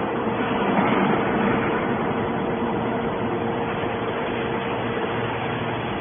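Hydraulic scrap-metal baler's power unit running: a steady mechanical din with a constant hum, a little louder about a second in.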